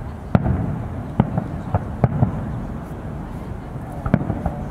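Aerial fireworks bursting: a run of sharp bangs at irregular intervals, most in the first couple of seconds and one more a little after four seconds, over a steady low rumble.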